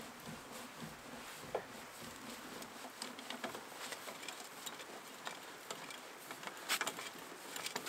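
Trailer tongue jack being hand-cranked down, giving faint, irregular clicks and ticks over a low hiss.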